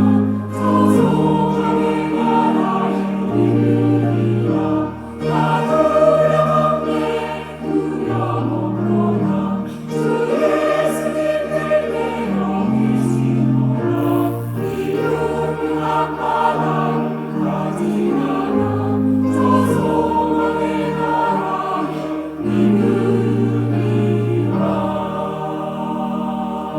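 Church choir singing a hymn anthem with accompaniment, in slow held chords.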